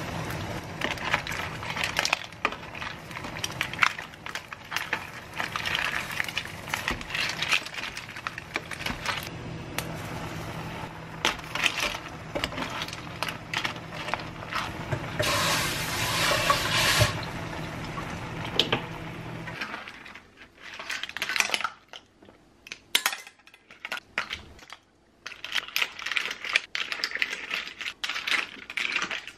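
Surf clam shells clattering and clinking against each other and a stainless steel pot as they are stirred with a wooden spoon and scooped out into a bowl. Under the clatter, the pot bubbles and a steady low hum runs until about two-thirds of the way through, then stops.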